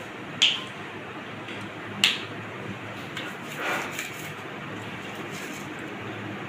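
Small handling sounds at a desk: two sharp clicks about a second and a half apart, then a soft rustle, over a steady faint hiss of room noise.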